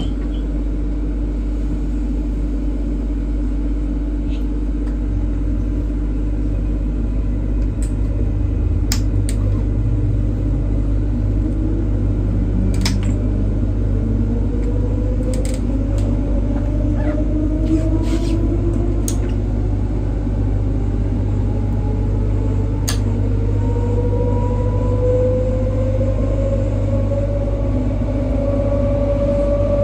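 Interior of a Queensland Rail EMU electric train: a steady hum and rumble, then from about twelve seconds in a whine from the motors rises slowly in pitch as the train pulls away and gathers speed. Scattered sharp clicks fall between about eight and twenty-three seconds.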